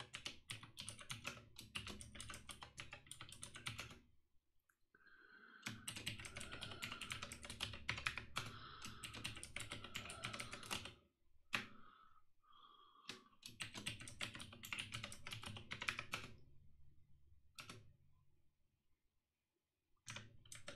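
Rapid typing on a computer keyboard: three bursts of quick key presses separated by short pauses, then a single keystroke.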